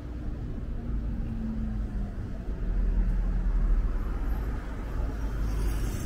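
City street traffic rumble, steady and low, swelling for a second or so around the middle.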